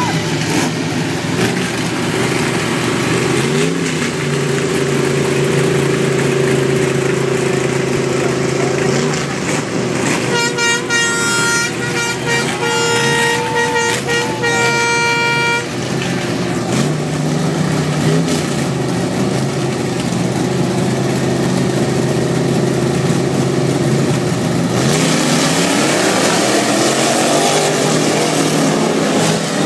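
Six- and eight-cylinder off-road race vehicle engines running and revving together. A horn sounds for about five seconds midway, and near the end the engine noise swells as the vehicles pull away.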